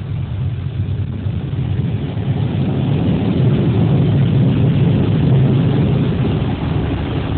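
Automatic car wash running: a steady, noisy rumble that grows louder over the first few seconds, then holds.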